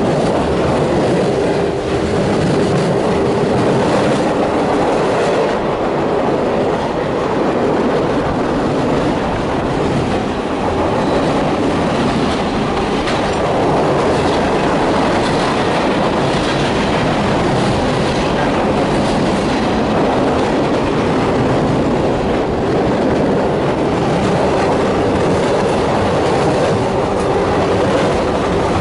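Freight train crossing a steel-girder railway bridge directly overhead, heard from underneath: a loud, continuous rumble and clatter of wheels on the rails and ties above.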